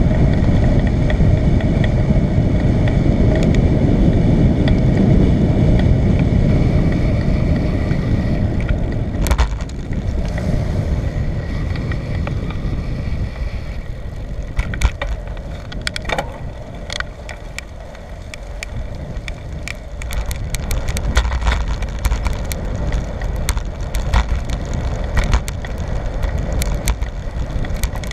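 Bicycle riding noise: heavy wind rumble on the microphone with rolling tyre noise, loudest for the first nine seconds or so. After that it drops and is scattered with sharp clicks and rattles.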